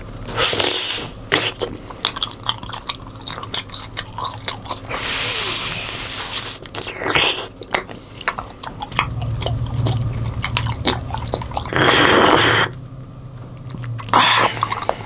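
Close-up biting and chewing of a dog-shaped wax candy (kẹo sáp) with a fruit-jam filling: many short crisp clicks of the candy breaking and wet chewing, broken by several louder, longer bursts of noise.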